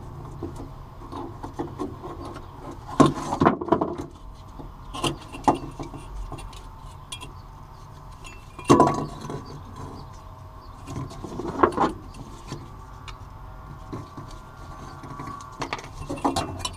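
Fuel pump wiring and its plastic connector being handled and pulled through the rubber grommet of the fuel pump access cover: scattered clicks, rubs and knocks, with a few louder clatters.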